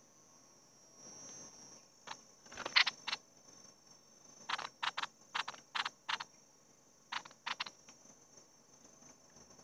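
A dozen or so short, sharp clicks in irregular groups, with a quick run of six about a third of a second apart in the middle, over a steady high-pitched insect drone.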